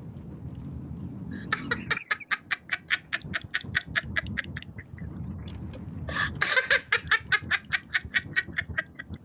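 A person laughing hard in two long bouts of rapid, evenly spaced "ha-ha" pulses, about four or five a second, with a short break between them.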